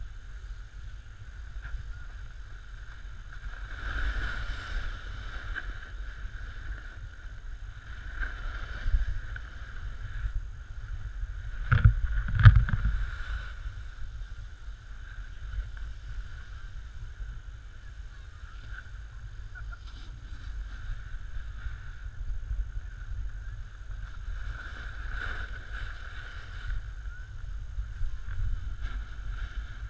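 Snowboard sliding and scraping over packed snow, with low wind rumble on the microphone. The slide swells a few times, and there is a short cluster of knocks about twelve seconds in.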